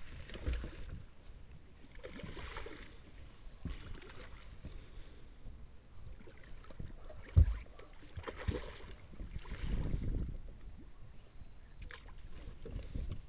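Water lapping and slapping against the hull of a small shallow-water fishing boat, coming in uneven swells, with a single sharp knock on the boat about seven seconds in.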